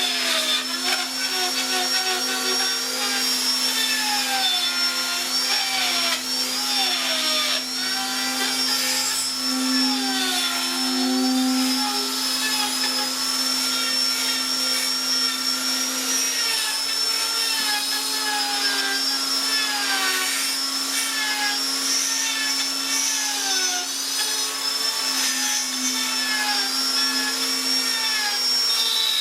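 Electric power tool motor running steadily while working wood, with a constant whine and shifting tones as the tool bites into the wood.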